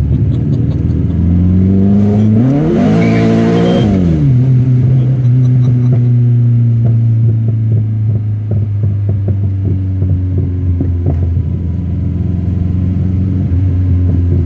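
TVR Cerbera 4.5's V8 engine heard from inside the car. Its pitch climbs hard under full throttle about two seconds in, with a rushing noise of the rear tyres spinning. It drops back about four seconds in and then runs steadily at a lower pitch.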